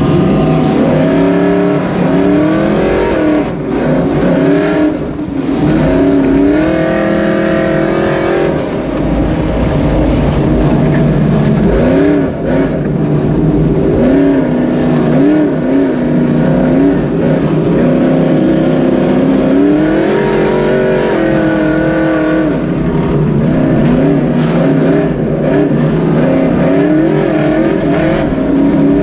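Dirt-track super stock race truck's engine heard from inside the cab, revving up and falling back over and over as the throttle is lifted and reapplied.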